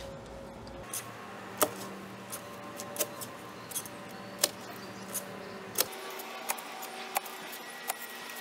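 Clamshell post hole digger jabbing into the soil again and again while a hole is dug: about a dozen sharp clicks and clinks of the blades and handles at a quick, uneven pace.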